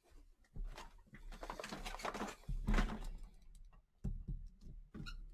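Handling noise: irregular rustling and clatter with a few dull thumps, the loudest near the middle and another about four seconds in.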